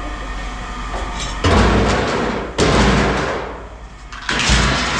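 Three loud crashes about a second apart, each starting sharply and trailing off over about a second.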